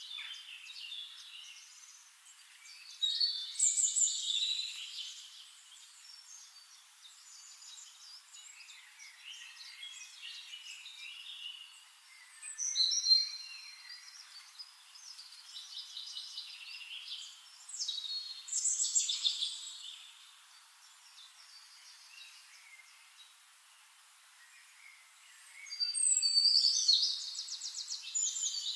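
Birdsong: bursts of chirping and trilling calls, loudest about 3, 13 and 19 seconds in and again from about 26 seconds, with faint chirps between.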